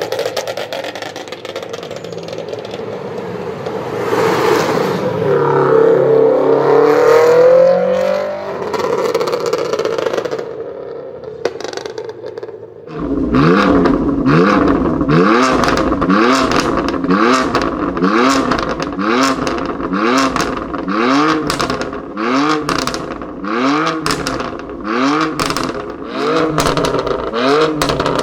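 Car engines revving with exhaust pops and crackles. First a rising rev, then, after an abrupt change, repeated throttle blips about once a second, each followed by sharp popping from the exhaust.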